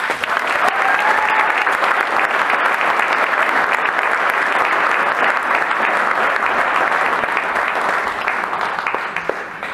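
Audience applauding in a theatre after a dance performance ends, the clapping steady at first and dying down near the end.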